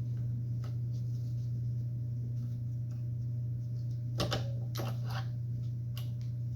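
Light metal clicks and taps as a screw is fitted and driven into a chop saw's base by hand, the loudest a short cluster about four seconds in, over a steady low hum.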